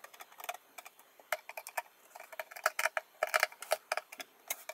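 Hand screwdriver driving small screws through a metal drawer runner into a chipboard drawer: a string of light, irregular clicks and ticks from the tip turning in the screw heads, coming in small clusters.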